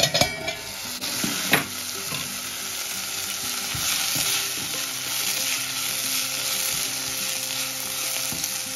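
Cabbage and potato curry sizzling in a stainless steel pot while a wooden spatula stirs and scrapes through it. A stainless steel lid clinks as it is lifted off at the start, and there is a sharp knock about a second and a half in.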